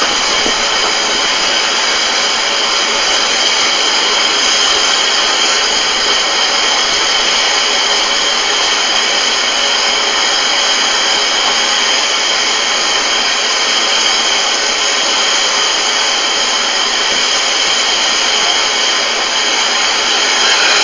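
Small saddle-tank steam locomotive giving a loud, steady hiss of escaping steam, with no exhaust beat.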